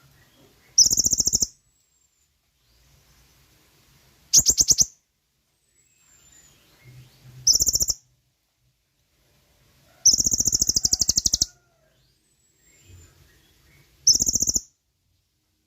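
Konin (kolibri ninja) sunbird song: five loud, rapid, high-pitched buzzing trills a few seconds apart, the fourth about twice as long as the others, with faint thin high notes between them.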